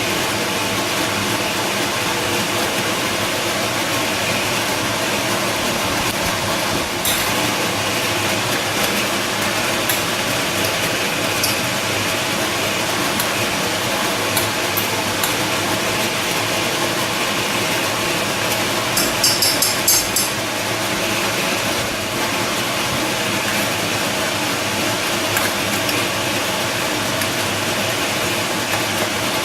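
Steady machine-like hum and hiss, with a few brief clicks and a short run of rapid clicking about two-thirds of the way through.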